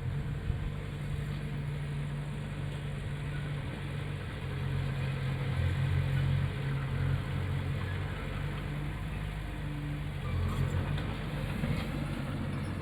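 Heavy diesel engine of earthmoving machinery running steadily at a low, even pitch, with a slight swell in loudness around the middle.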